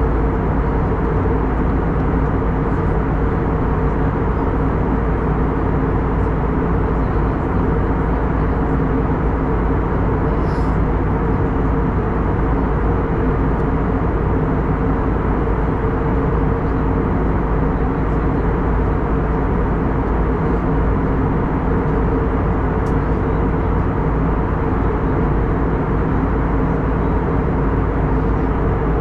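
Airbus A321neo passenger cabin in flight, heard from a window seat beside the wing and engine: a steady rush of airflow and engine noise with a low, even hum underneath.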